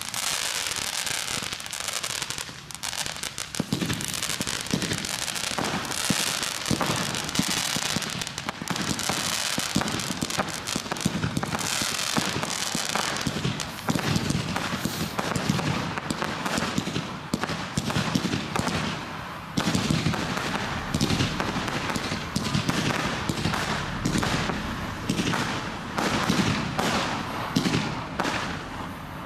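Low-noise small-category (F2/T1) fireworks going off without a break: fountains and small aerial shells launching and bursting, with a dense run of quick pops and crackles.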